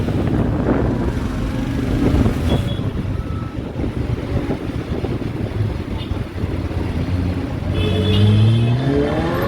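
McLaren 765LT's twin-turbo V8 rumbling, with a couple of sharp exhaust pops in the first few seconds. From about eight seconds in its revs climb steadily as the car accelerates.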